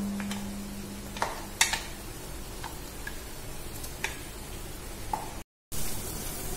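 Light clicks and taps of kitchen work, a second or so apart, with a low metallic ring dying away at the start. After a brief cut near the end comes a steady sizzle of masala paste frying in a pan.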